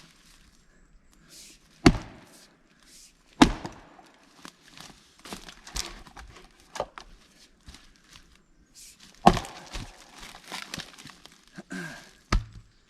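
Fiskars axe striking a block of Scots pine as it is split: four heavy blows, about two seconds in, a second and a half later, then two more near the end, with smaller knocks and rustling between them.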